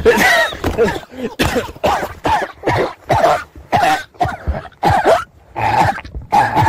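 Repeated harsh, cough-like vocal bursts, about two a second, each with a short downward-falling pitch.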